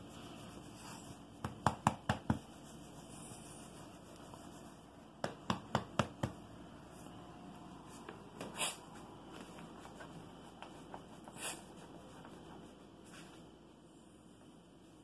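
A hand rubbing a dog's belly fur, a soft rustling, with two quick runs of five or six sharp clicks a few seconds apart and a few single clicks later.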